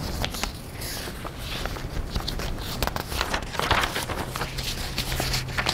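Sheets of paper being handled and swapped, with irregular rustles and light knocks and a knock right at the start.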